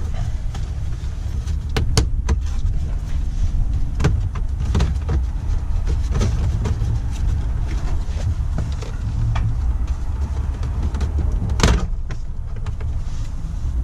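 Plastic dashboard trim on a Toyota Tacoma being pried and pulled loose, with sharp clicks and snaps from its clips. The loudest snap comes near the end, over a steady low rumble.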